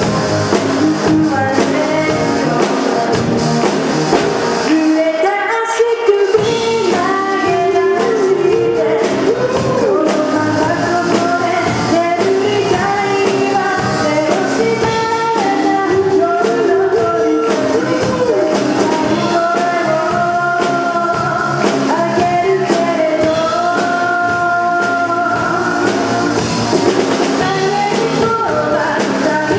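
Live rock band: a woman singing lead over electric guitar, bass guitar, keyboard and drum kit, amplified through the hall's PA. The bass and drums drop out for a moment about five seconds in, then come back.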